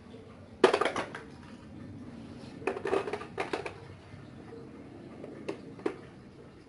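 Screwdrivers and other metal hand tools clattering against each other, the plastic toolbox and the concrete floor: a quick run of clinks about half a second in (the loudest), another cluster around three seconds, then two single clinks near the end.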